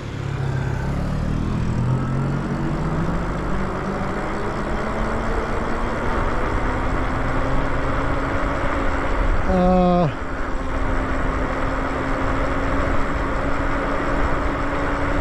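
Electric bike ridden at speed: wind rushes over the microphone under a thin whine that rises in pitch as the bike picks up speed over the first several seconds, then holds steady. A brief vocal sound comes about ten seconds in.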